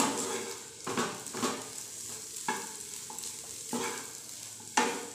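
A spatula stirring and scraping mashed potato with onion and coriander around a non-stick frying pan, in separate strokes about once a second, with a harder scrape near the end, over a faint sizzle of the mix frying on low flame.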